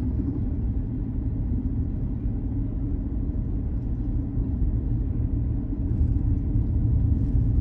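Steady low rumble of a car driving on a country road, heard from inside the cabin: engine and tyre noise with no sudden sounds.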